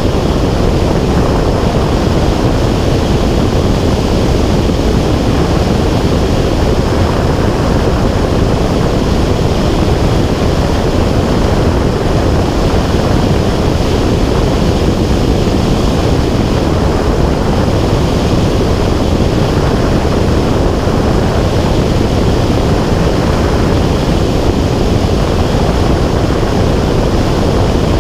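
Steady, loud rushing noise of a small aircraft in flight, with airflow over the microphone mixed with the drone of engine and propeller. It runs unbroken, with no change in level or pitch.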